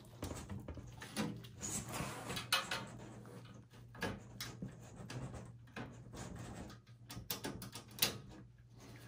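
Scattered light clicks, knocks and scrapes as a motherboard is worked loose inside a steel desktop PC chassis and the case is handled.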